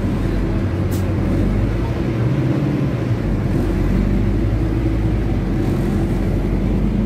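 Scania OC09 diesel engine of a rear-engined city bus running steadily, heard from inside the passenger cabin, with one short click about a second in.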